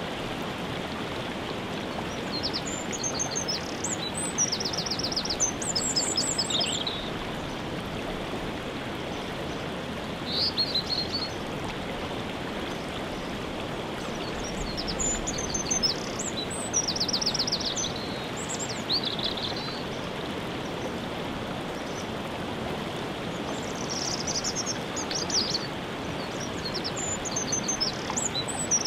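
Waterfall's steady rushing water, with songbirds singing short, high, trilled phrases over it in groups every few seconds.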